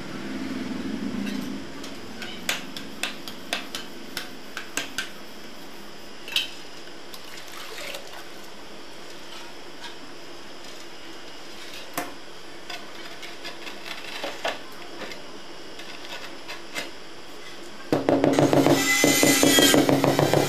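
Hand tools scraping and tapping on wet mortar and a floor tile, a scattered series of light clicks and knocks. About 18 s in, loud music with a drum beat comes in.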